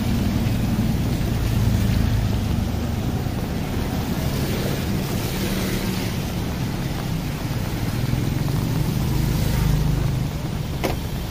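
Rainy street with motor traffic passing: engines swelling and fading under a steady hiss of rain, with one sharp click shortly before the end.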